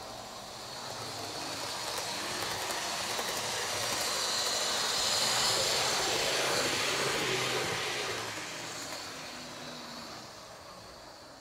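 A model electric train running past on its track. The sound of its motor and wheels on the rails grows louder to a peak about halfway through, then fades away.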